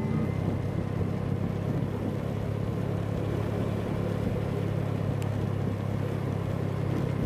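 Motorcycle engine running steadily while riding, with a low even drone and road and wind noise.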